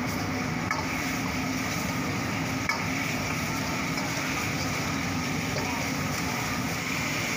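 Steel ladle stirring and scraping sauce-coated chicken in a wok over a gas burner, with steady sizzling and burner noise and a couple of sharp clinks of the ladle on the pan.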